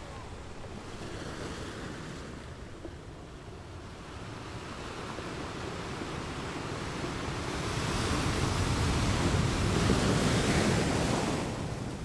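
Ocean surf: a steady rush of breaking waves that swells to its loudest about eight seconds in and eases off near the end.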